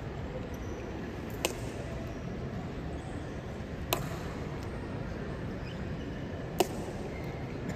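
Honor guard boot heels striking the stone floor in a slow ceremonial march, giving a sharp click about every two and a half seconds, three times, over a steady hall hum.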